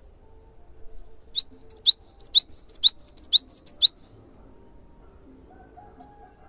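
Cinereous tit (gelatik batu) singing a loud, high-pitched song about a second and a half in: a quick two-note phrase, a rising sweep then a higher note, repeated about six times over nearly three seconds.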